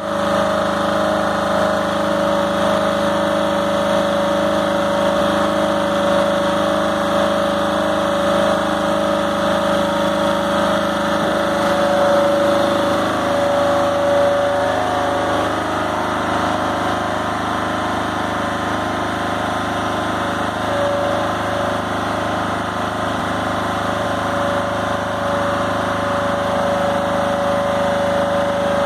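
Small donkey engine on a skeletal tipper trailer running steadily under load, driving the hydraulic pump and ram that lift the front of a loaded shipping container to tip it. Its note changes slightly about halfway through.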